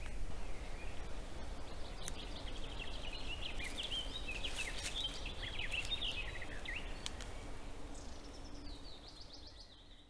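Songbirds singing in woodland: a run of quick chirping notes in the middle, then a phrase of notes stepping down in pitch near the end, over a steady low hiss; the sound fades out in the last couple of seconds.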